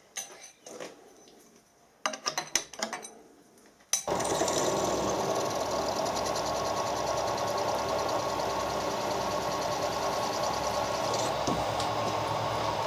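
A few light clicks and knocks, then about four seconds in a machine tool's spindle starts suddenly and runs steadily with a fine fast rattle, as a centre drill cuts into a bronze-welded cast iron casting.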